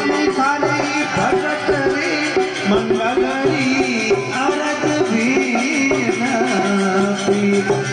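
Live Rajasthani devotional bhajan music: a steady drone from a tandura (long-necked drone lute) under a sung, gliding melody, with a hand-drum rhythm.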